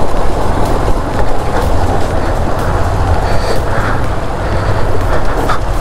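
Motorcycle running in a low gear with rattling and knocking as the bike jolts down a rough, rocky track.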